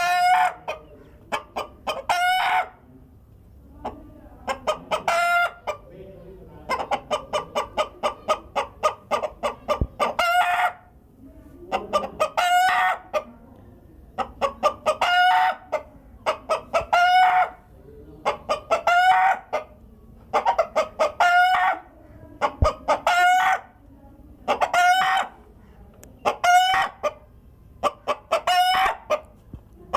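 A hen's egg-laying cackle, the call a hen gives around laying an egg: runs of quick clucks each ending in a longer, higher squawk, repeated about every two seconds. About a third of the way in, one stretch of rapid clucks runs on for several seconds before its squawk.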